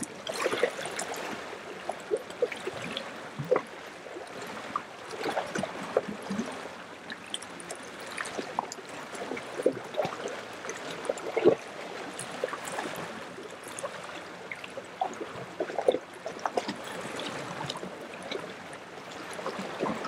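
Small ocean waves lapping at the shore: a steady wash of water broken by many short, irregular splashes.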